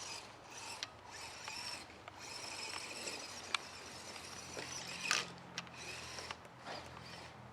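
Axial SCX10 Deadbolt RC crawler's electric motor and geared drivetrain whirring as it drives over snow, easing off and picking up again several times. A few sharp clicks from the chassis, the loudest about five seconds in.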